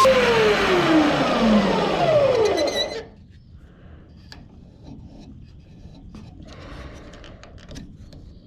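Electric drill, used as a makeshift lathe spinning an antler ring blank on a dowel, switched off from high speed: its whine falls steadily in pitch as it spins down over about three seconds. Light handling clicks and rustles follow.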